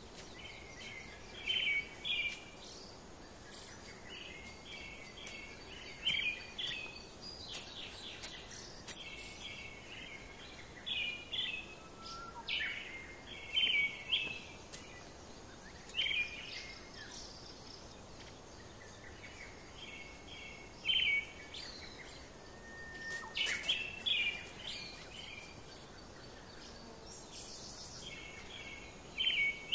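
A bird calling over and over, each call a short phrase of quick high chirping notes, repeated every few seconds, over steady outdoor background noise. A few sharp clicks sound in the middle and again near the end.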